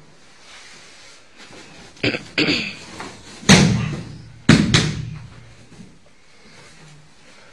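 A body thrown down onto the martial-arts mats: a couple of thuds about two seconds in, the loudest thud near the middle, then two quick slaps on the mat about a second later, with cloth rustling between them.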